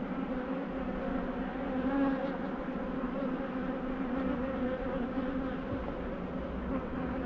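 Honeybees from an opened hive buzzing in a steady, unbroken hum.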